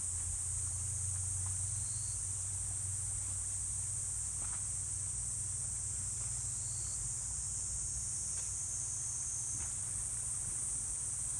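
A steady, high-pitched insect chorus, shrill and unbroken, with a few faint brief chirps over it and a low rumble underneath.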